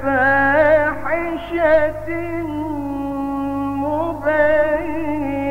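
A male Qur'an reciter chanting in the melodic mujawwad style. The voice first winds through quick ornamented turns, then holds one long, steady note with a slight waver.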